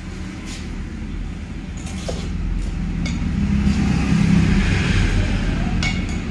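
Steel tyre lever clinking and scraping against a motorcycle alloy rim as a tubeless tyre's bead is levered on: a few short metallic clicks. Under them runs a steady engine-like rumble that grows louder in the middle.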